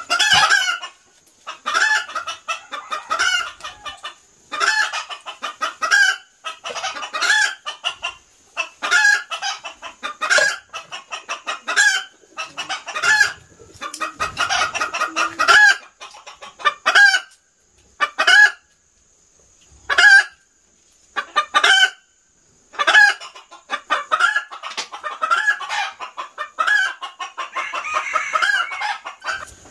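Chickens clucking, a run of short calls about one a second, with a few longer drawn-out calls near the middle and the end.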